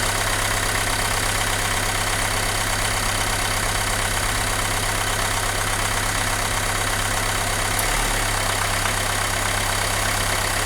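Renault Mégane 2 engine idling steadily, with a brief faint click about eight seconds in. The engine has a shaking, power-losing fault and is running through a one-cylinder-at-a-time connector test to find the misfiring cylinder.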